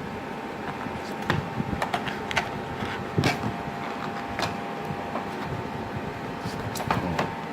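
Cardboard keyboard retail box being handled by hand, with scattered taps, clicks and short scrapes, over a steady electrical hum from a fan or air conditioner.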